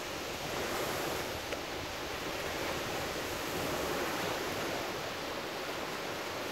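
Small ocean waves breaking and washing onto the shore: a steady rushing that swells as a wave breaks about a second in and again around four seconds.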